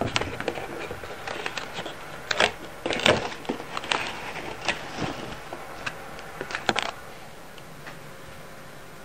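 Irregular light clicks and taps as a calico cat moves about on a hard wooden floor close to the microphone. The taps stop about seven seconds in, leaving a faint steady room hum.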